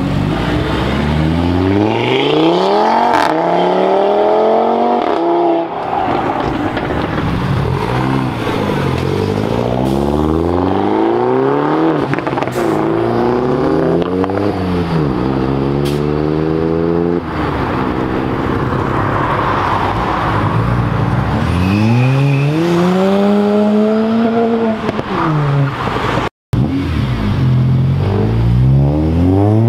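Several performance cars in turn accelerating hard away, engines revving up through the gears, the pitch climbing and dropping again with each gear change. The sound cuts out for an instant near the end.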